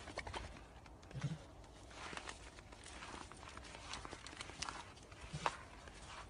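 Footsteps crunching on a snowy path: a run of irregular, faint crunches and scuffs, with a few soft low thuds.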